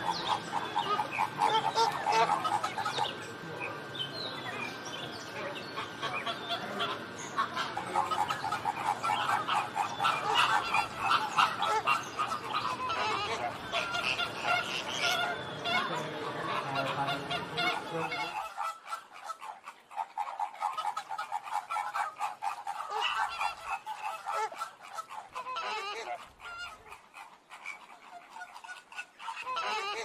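A flock of flamingos calling continuously, with many nasal calls overlapping. A low background noise under the calls stops about eighteen seconds in.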